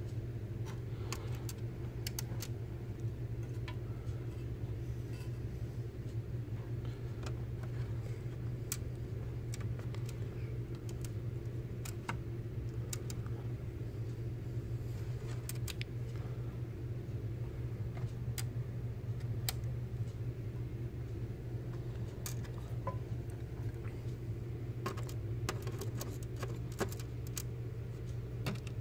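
Small metal clicks and taps from a screwdriver and screws on a laptop's metal chassis plate, scattered irregularly over a steady low hum.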